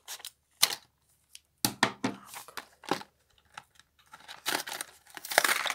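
Plastic blister packaging and its cardboard backing being torn open and handled: irregular crinkling and tearing, in scattered snaps at first and then a dense run near the end.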